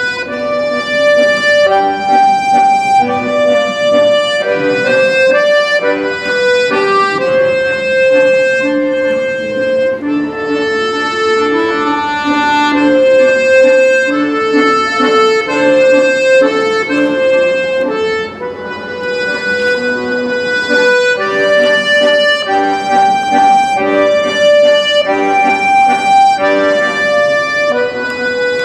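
Accordion music: a melody of held reedy notes over sustained lower chords, changing note every half second or so, without pause.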